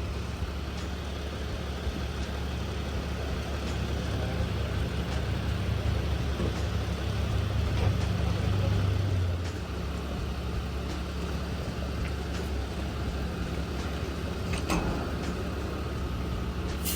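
A running engine's steady low hum, louder for about five seconds in the middle, with faint scattered clicks.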